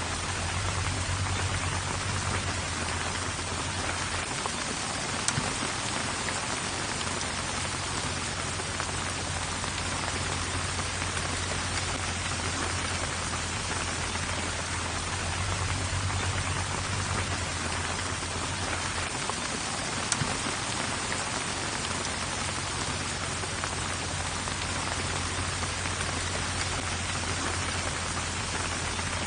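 Steady heavy rain falling, an even hiss of drops with a low rumble underneath. Two sharp taps stand out, about five seconds in and about twenty seconds in.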